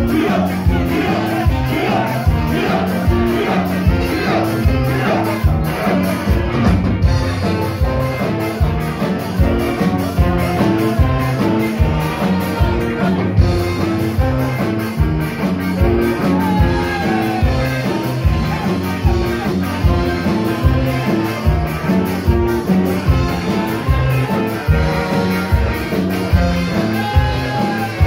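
A live band playing an up-tempo rock number with electric guitars, bass and a steady drum beat, and a singer's vocals over it.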